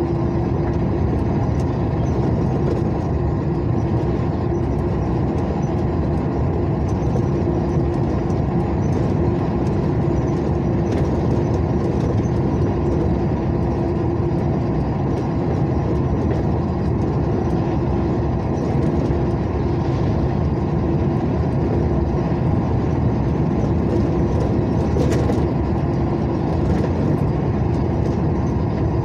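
Steady engine and road noise of a vehicle cruising along a highway, with a constant hum.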